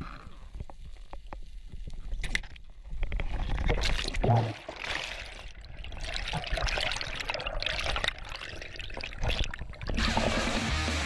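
Water sloshing and bubbling around an underwater camera, with scattered muffled knocks and a brief, louder low muffled sound about four seconds in. Music with a steady beat starts near the end.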